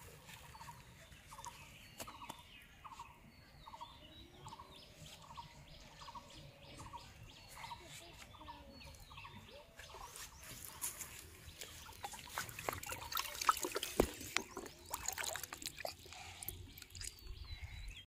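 A bird repeats a short, clear note about twice a second. From about ten seconds in, water splashes and sloshes in a plastic bucket as a large fish is put in and thrashes.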